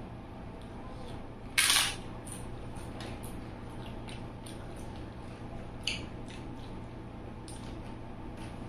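Someone eating papad, with faint mouth clicks throughout. A loud crisp crunch about a second and a half in and a smaller sharp crunch near six seconds are bites into the crisp wafer.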